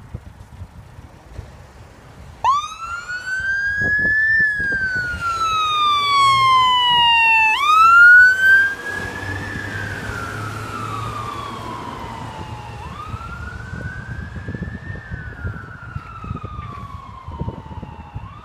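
Fire-brigade van's siren on an emergency call, switching on about two and a half seconds in: a quick rise then a slow falling wail, repeating every five seconds or so. It is loudest as the van passes, then fades as it drives away.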